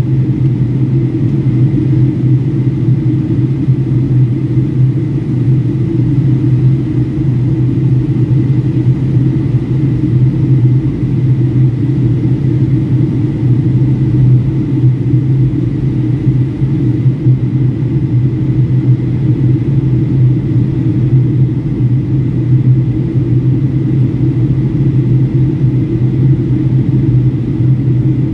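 Steady cabin drone of a Boeing 757-300 in flight on approach: engine and airflow noise heard from inside the cabin, low and even, with a faint steady high tone above it.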